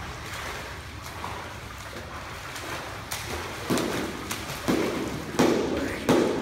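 A swimmer's overarm strokes splashing in pool water: about four loud splashes in the second half, over a steady rushing noise.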